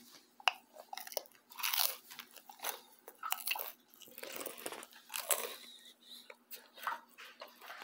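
A toddler chewing a mouthful of pizza, with irregular crunches and mouth clicks.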